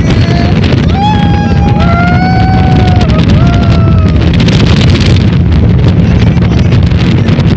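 Speedboat running at high speed: a steady engine rumble mixed with heavy wind buffeting the microphone. Several long voice calls ring out in the first half.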